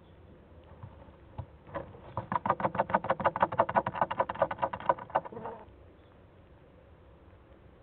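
A chick scratching and shuffling in the wood-shaving bedding of a nest box: a rapid run of scratchy strokes, about ten a second. It starts about two seconds in and lasts some three and a half seconds.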